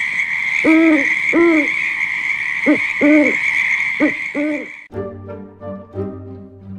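Spooky owl-hoot sound effect over a steady hiss: about six hoots, each rising then falling in pitch, some in short-long pairs. About five seconds in it cuts off and light background music takes over.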